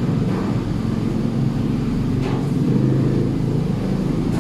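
A loud, steady low motor-like rumble throughout, with a few faint short crunches from chewing crispy fried potato sticks.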